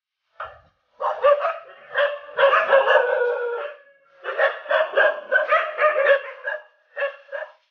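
A dog barking in rapid bouts: a single bark about half a second in, then runs of barking with a short break about halfway through, ending in two quick barks.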